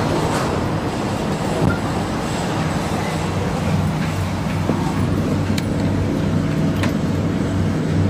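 Metro train standing at an underground platform with its doors open: a steady low hum and rumble from the train, with a few faint clicks.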